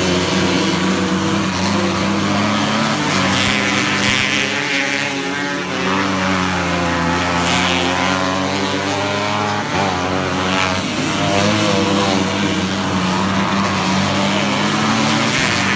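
A pack of winged sprint cars racing on a dirt oval: several engines run at full throttle together, pitch rising and falling as the cars accelerate down the straights and lift for the turns.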